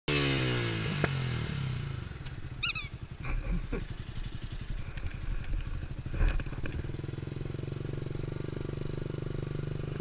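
Motorcycle engine heard from the rider's helmet: the revs fall away over the first couple of seconds, the engine rumbles unevenly at low speed, then settles to a steady note. A brief high squeak comes near the three-second mark and a short knock about six seconds in.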